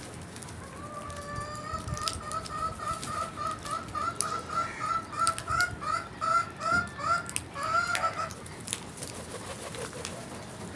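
A crow calling in a quick run of short, nasal notes, about three a second, starting faint and growing louder for about seven seconds before stopping abruptly. Scattered sharp clicks sound throughout.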